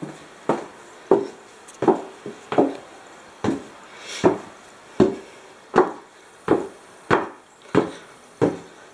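Footsteps climbing wooden stairs: a steady series of about a dozen thumps, roughly one every two-thirds of a second.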